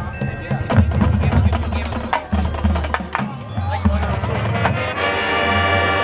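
High school marching band playing: percussion with sharp clicks and deep drum hits, then about five seconds in the brass come in with a held chord.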